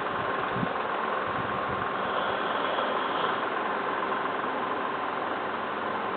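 A sleeping person snoring, slow rough breaths swelling about every four to five seconds over a steady background hiss.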